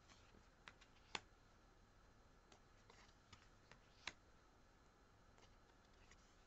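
Near silence with a handful of faint clicks and taps from tarot cards being handled and swapped in the hand.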